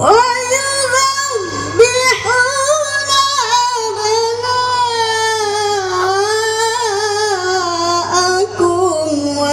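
A woman reciting the Quran in the melodic tilawah style, one long ornamented phrase that starts abruptly and wavers in pitch. It is amplified through a stage PA system and runs over a steady low hum.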